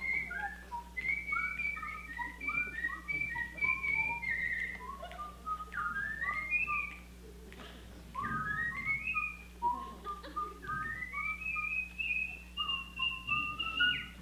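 Two people whistling a tune together, often in two parts at once, with sliding upward notes and a short break about seven seconds in.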